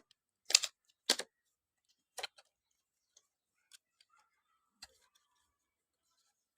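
Handling of a microphone's retail box as it is opened: a series of sharp clicks and taps, the loudest in the first second or so and another after about two seconds, then a few fainter ones.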